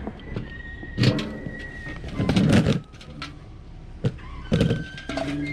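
Plastic buckets being picked up and handled, giving a series of hollow knocks and rattles with a dense clatter about halfway through.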